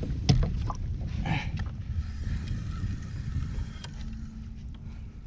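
Wind buffeting an action camera's microphone over open water from a fishing kayak, with a few sharp knocks in the first second or so as gear is handled.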